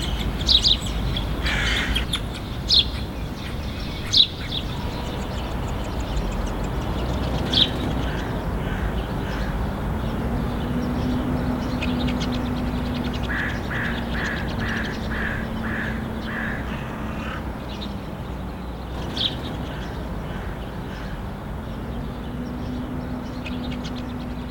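Syrian woodpecker calls: sharp, high single notes now and then, and in the middle a run of about eight evenly spaced calls at roughly two a second. A steady low hum and rumble runs underneath.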